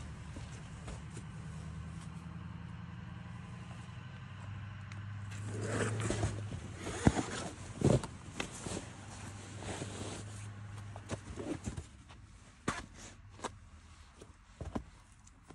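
Rustling and scraping of a spotter's nylon puffy jacket and shuffling feet beside crash pads, loudest about six to ten seconds in, with a few sharp knocks scattered through. A low steady hum runs underneath and fades out around twelve seconds in.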